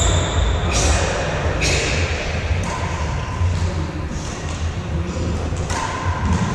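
Echoing sounds of badminton play in a large hall: a few sharp knocks of rackets striking a shuttlecock or of shoes on the wooden floor, over a steady low rumble.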